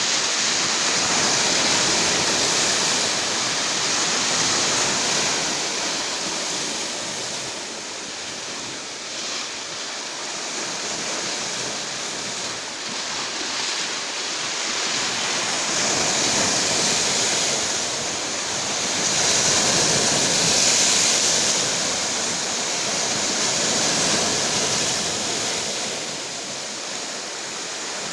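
Rough, stormy sea surf breaking on the shore: a continuous rushing wash that swells and eases every few seconds.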